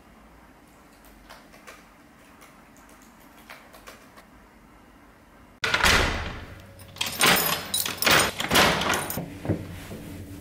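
Faint, scattered clicks of laptop keys being typed on, then suddenly, about five and a half seconds in, a front door being unlocked and opened: the brass lever handle and the key in the lock clacking, and keys jangling, in a run of loud, sharp knocks.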